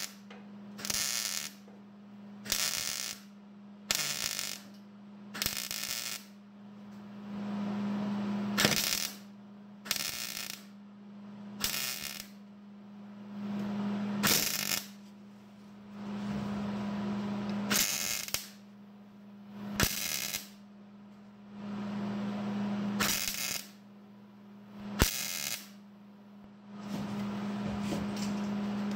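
Electric welder laying a series of short tack welds on the truck's sheet metal: about sixteen crackling bursts, most under a second and several lasting two seconds or so, over a steady low electrical hum.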